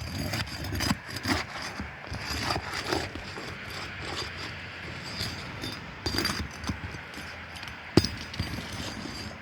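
Roofing nails being pried out of shingles: irregular scraping and clicking of a metal tool against the shingles and nails, with one sharp knock about eight seconds in.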